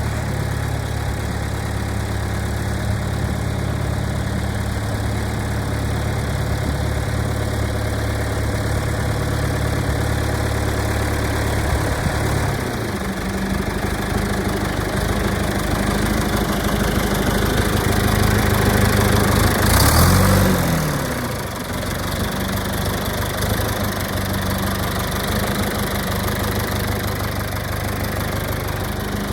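John Deere 310-A backhoe's engine running at idle just after starting. The engine note changes about twelve seconds in, then builds to a louder, higher peak about two-thirds of the way through and drops back to a steady idle.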